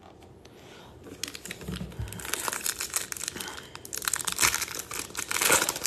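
The shiny wrapper of a trading-card pack being torn open and crinkled by hand. The crackling starts about a second in and grows louder toward the end.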